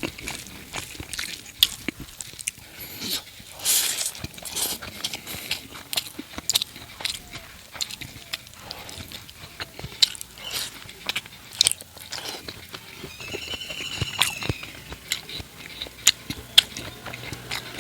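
Close-miked chewing of fatty pork curry with rice: irregular wet mouth smacks, clicks and soft crunches. A brief high, arching call sounds once about two-thirds of the way through.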